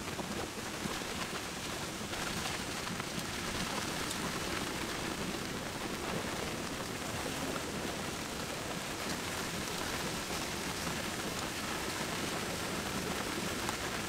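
Steady rain falling, an even wash of fine drops that holds unchanged throughout.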